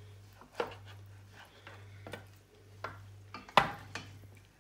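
Pieces of cooked meat being laid into a metal oven tray: about six scattered knocks and clinks, the loudest about three and a half seconds in, over a steady low hum.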